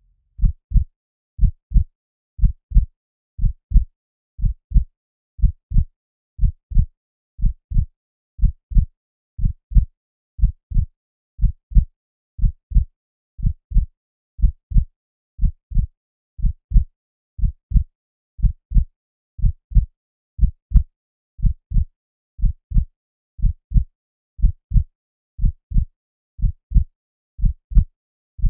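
Heartbeat sound effect: a steady, regular lub-dub, two low thumps per beat, at about one beat a second.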